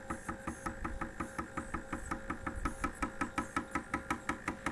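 Stepper motors turning the variable capacitors and roller inductor of an HF antenna tuner at a slow speed setting, giving an even train of clicks about six a second over a faint steady tone.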